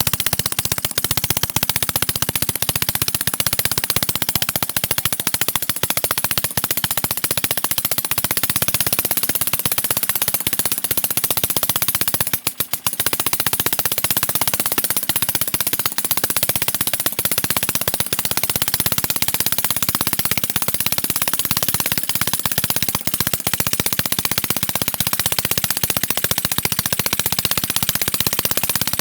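Small homemade two-stroke engine, built from the internals of a refrigerator compressor, running fast with a rapid popping firing. It briefly cuts out about twelve seconds in, then picks up again.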